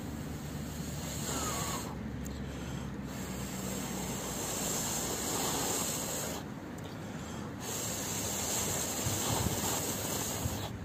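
Long, steady breaths blown onto a smouldering char-cloth ember in a nest of fatwood shavings to coax it into flame. There are three long blows, with short breaks about two seconds and six and a half seconds in. The tinder is slow to catch.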